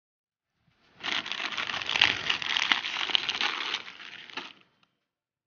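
Plastic packaging crinkling and crackling as it is handled, starting about a second in and stopping about a second before the end.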